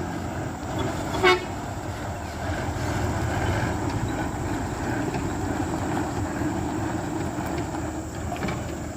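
A vehicle engine running steadily, with one short horn toot about a second in.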